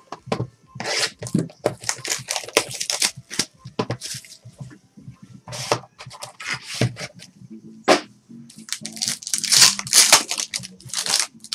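Plastic and foil wrapping on a box of trading cards being torn open and crumpled by hand: a string of tearing, crackling rustles with a few sharp snaps, loudest near the end.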